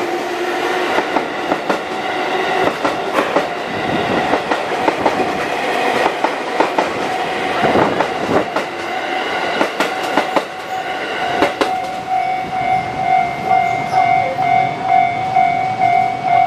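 A JR 221 series electric train passing, its wheels clacking over rail joints. About twelve seconds in the clacking thins, and a steady pulsing ringing tone stands out, which fits the level-crossing warning bell.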